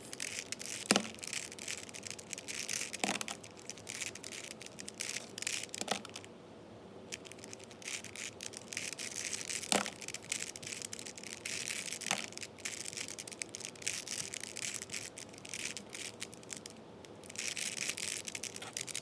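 4x4 Rubik's cube being turned rapidly by hand through a parity algorithm: a continuous run of plastic clicks and rattling as the layers turn, with a few sharper clacks.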